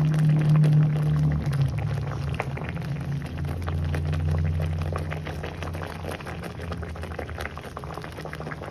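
Tofu simmering in a thick sweet soy bacem sauce in a wok, bubbling and crackling steadily, with a steady low hum underneath; the sound fades slightly toward the end.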